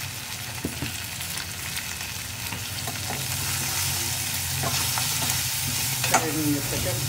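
Chopped vegetables sizzling as they fry in a pressure cooker, stirred with a steel ladle that clicks against the pot a few times. The sizzle grows a little louder about three seconds in.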